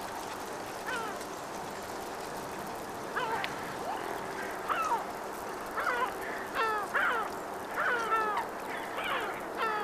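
Yellow-legged gulls calling: about a dozen short calls, many falling in pitch, scattered at first and then coming more than once a second from about six seconds in, over a steady background noise.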